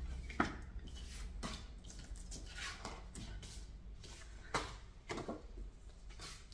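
Paper photo cards and printed photos being handled and sorted: faint rustling with a few short, light ticks scattered through.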